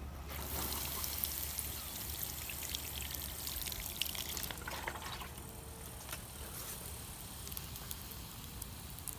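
Water poured onto a campfire to put it out. The pouring rush starts just after the beginning, runs about five seconds, then drops off to a faint trickle.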